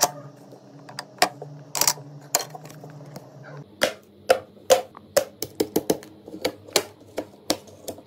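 Irregular sharp clicks and taps of hard computer parts being handled and fitted together, over a steady low hum.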